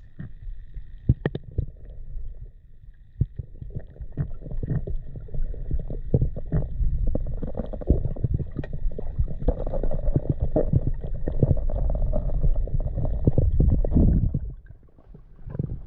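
Muffled underwater rumble and water movement against a camera housing as a spearfisher swims, with scattered small clicks and knocks. A faint steady high whine runs along with it. Both the rumble and the whine drop away about a second before the end.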